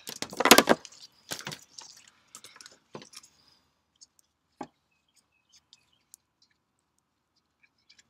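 Nylon ratchet-strap webbing swishing and rustling as it is handled and fed through the metal ratchet buckle, loudest in the first second and again briefly near a second and a half, with scattered small clicks and one sharp click about halfway through.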